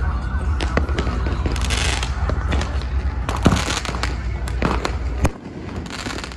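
Fireworks being set off from the ground: a quick run of sharp bangs and cracks mixed with hissing bursts of crackling sparks. The loudest bangs come about three and a half seconds in and just after five seconds. A low rumble underneath cuts off suddenly right after the second of these.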